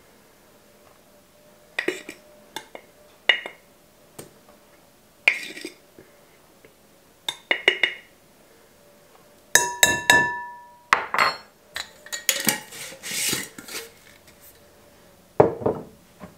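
Metal measuring spoon scraping and clinking inside a glass jar while scooping out powdered sugar, in scattered short clicks. About ten seconds in comes a sharp clink that rings briefly, followed by a few seconds of scraping and a knock near the end as the spoon is put down.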